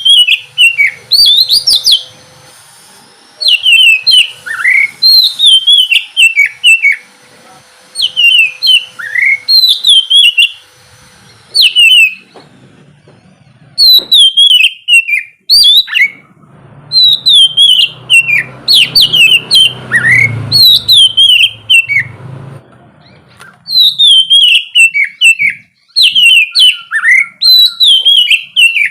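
Oriental magpie-robin (kacer) singing loudly: fast runs of clear whistled notes that slide downward, delivered in bursts with short pauses between phrases.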